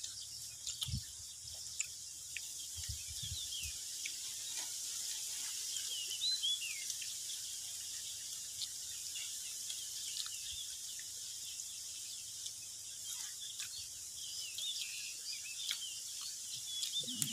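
Steady high-pitched chorus of insects, with a few short bird chirps about six seconds in and again near the end. A few soft low thumps in the first few seconds.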